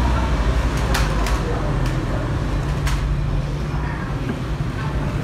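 Indistinct background voices over a steady low rumble, with a few sharp clicks.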